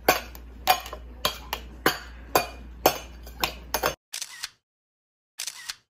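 A small metal spoon clinking and tapping against a stainless steel bowl as a toddler feeds herself, about ten sharp clinks in quick succession. The clinking stops suddenly about four seconds in.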